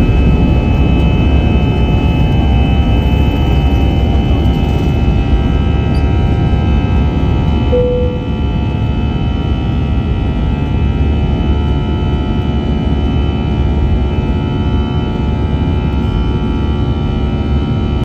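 Airliner jet engines at takeoff thrust, heard from inside the cabin during the climb-out just after liftoff: a steady, loud roar with several held whining tones. A brief tone sounds about eight seconds in, and the noise drops slightly just after it.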